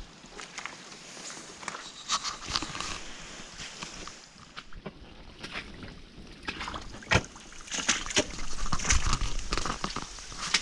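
Footsteps squelching and splashing through wet mud and shallow puddles, irregular, getting louder and busier in the second half.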